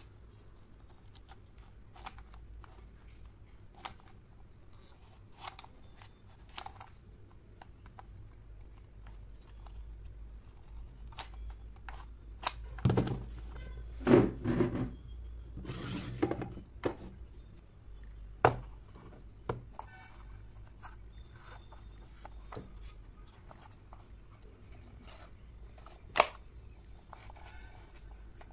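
Small clicks and taps of miniature wooden dollhouse furniture being handled, its tiny drawers and doors worked by hand. About halfway through there is a cluster of louder knocks and scrapes as the cabinet is set down on a wooden tabletop, and there is a sharp click near the end.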